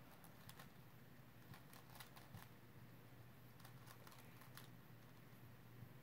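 Faint clicking of a Rubik's cube's plastic layers being turned by hand, in quick irregular clusters with short pauses between.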